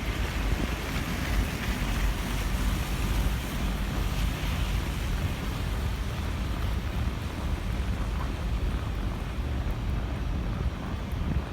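Snowstorm wind buffeting the microphone: a steady, rumbling rush of noise with no distinct events.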